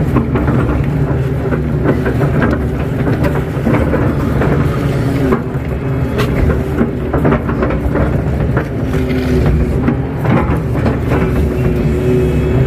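Kato crawler excavator's diesel engine and hydraulics running under load, heard from inside the operator's cab, the pitch shifting a little as the arm and bucket work. There are occasional short knocks.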